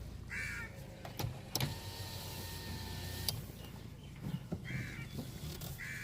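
A crow cawing, three short caws spread a few seconds apart. In the middle comes a brief mechanical whirring that starts and stops with a click.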